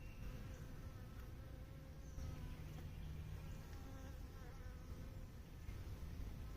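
Honeybees buzzing around an open hive: a faint hum of several wavering tones over a low rumble.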